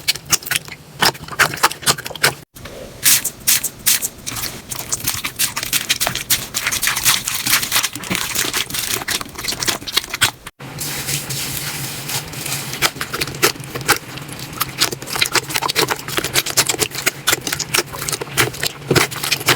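Slime being squeezed and pressed by hand, giving a rapid run of crackling, popping clicks. The sound cuts out briefly twice as one slime gives way to another.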